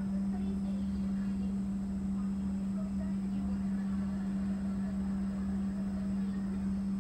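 Steady low hum, one unchanging tone, with a slow throbbing underneath.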